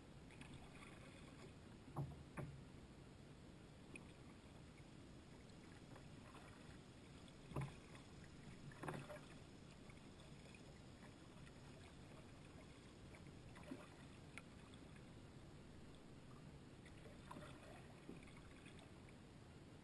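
Kayak paddling in near silence: a handful of soft knocks and splashes from the paddle against the water and the kayak's hull at uneven intervals, the loudest about two seconds in and again near the middle.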